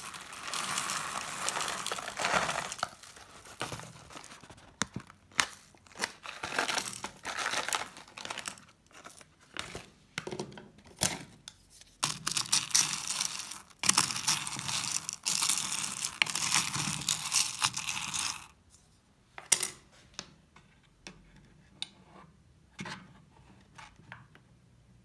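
Hard wax beads pouring from a foil bag into a metal wax-warmer pot and being stirred, a dense rattling rush in several runs with the bag crinkling. After that it goes sparse, with only a few scattered sharp clicks near the end.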